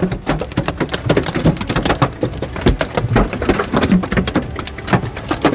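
Hailstones pelting down hard in a dense, irregular clatter of sharp impacts.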